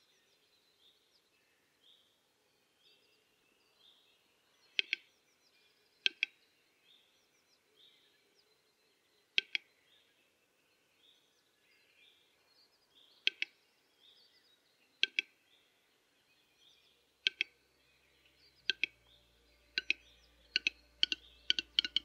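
Western capercaillie displaying at the lek: single sharp clicks, one to three seconds apart, that come faster and faster near the end, the opening click phase of the male's song. Faint, repeated rising chirps from a small bird carry on underneath.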